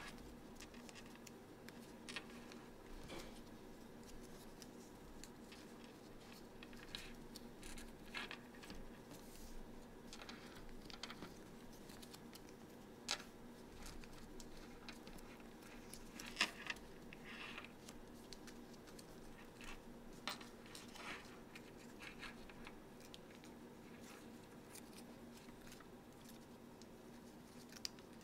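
Faint, irregular crinkles and clicks of paper being folded and creased by hand, over a steady low hum.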